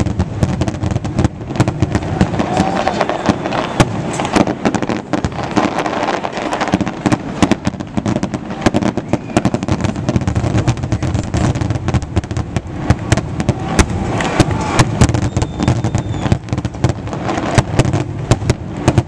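Fireworks display going off in a dense barrage: many sharp bangs and crackles in quick succession over a continuous low rumble.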